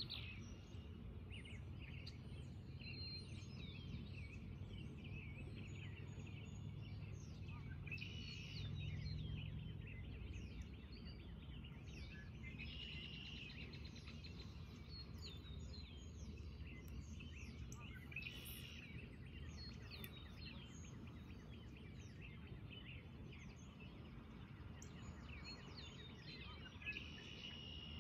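Birds chirping and calling, with denser bursts of song every few seconds, over a steady low background rumble.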